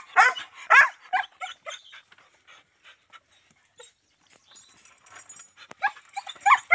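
German shepherd giving a quick run of short, high-pitched yelps and whines in the first two seconds, then whining again near the end.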